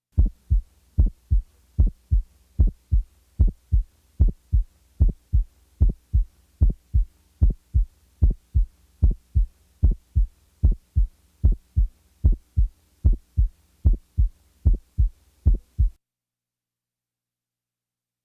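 Human heart sounds: a regular run of heartbeats in which the first heart sound is widely split into two separate thumps, followed by the second sound. An abnormally wide split like this can come from the two ventricles contracting out of step, as in right bundle branch block. The heartbeat stops about two seconds before the end.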